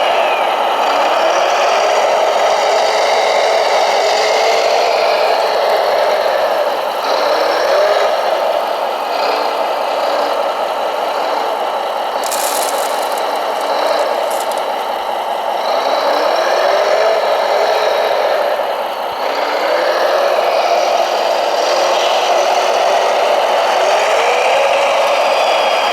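Radio-controlled model construction machines running, their small electric drive motors and gearboxes whirring and rattling, with rising whines every few seconds as they speed up. A brief spell of fast clicking comes about halfway through.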